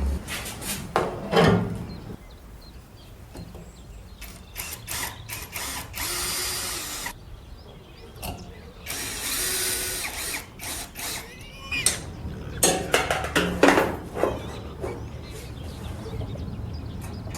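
Workshop tool noises on the microwave teardown: scattered ratcheting clicks and knocks, with two noisy bursts of about a second each in the middle.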